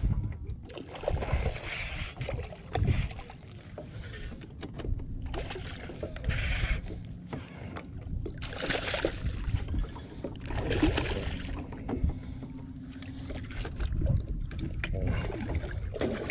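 Wind buffeting the microphone over water noise on a small open fishing boat, with irregular rushing surges every second or two.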